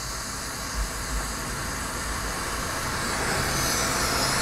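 Steady hiss of a glassworking bench torch's flame as glass rods are heated and twisted in it, growing gradually louder through the second half.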